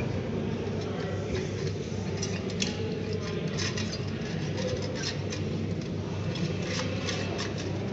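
Metal Rubik's cube pieces being handled and fitted together by hand: irregular light clicks, taps and scrapes, thickest from about two seconds in, over a steady low hum.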